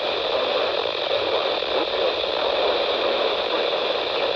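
Steady radio static hiss from a weather-radio receiver on a weak, noisy signal, with no voice coming through.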